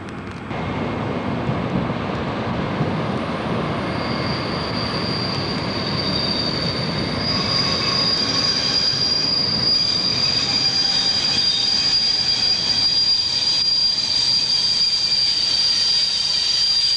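A DR class 219 diesel locomotive moves slowly through the station with its train, its wheels squealing on the rails. Rumbling running noise fills the first seconds; a steady high squeal sets in about four seconds in and grows louder as the train passes.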